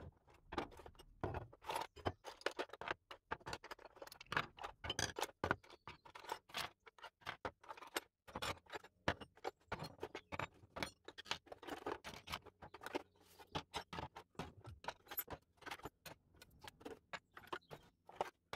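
Hand tools (screwdrivers, files, pliers, chisels, a hammer) being lifted from a wooden box and set down one after another on a wooden bench top: a constant run of irregular clicks, clinks and knocks of metal and wooden handles.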